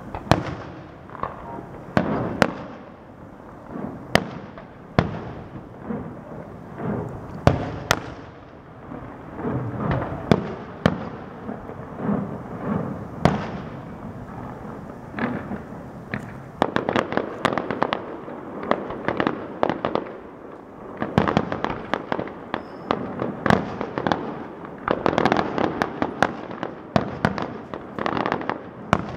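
Aerial fireworks going off in sharp bangs every second or so, with thick runs of rapid crackling bangs through the second half.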